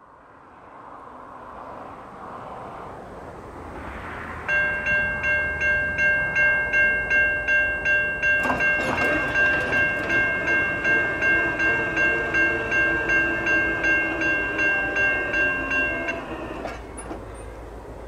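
Grade crossing bell ringing in rapid even dings, about two and a half a second, from about four seconds in until near the end, over the rising rumble of an approaching EMD GP40R diesel locomotive. About halfway through, the locomotive's horn sounds a held chord under the bell.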